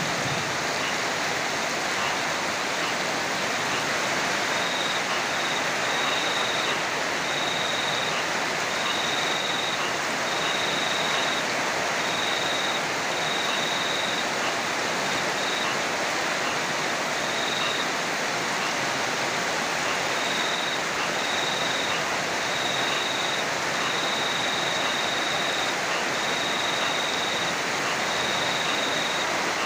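Steady heavy rain, a dense even hiss. From about five seconds in, a high thin cricket trill comes and goes over it in short runs.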